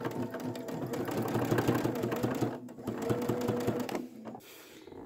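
Sewing machine stitching a quilt's binding, the needle running in a fast, even rhythm; it stops about four seconds in.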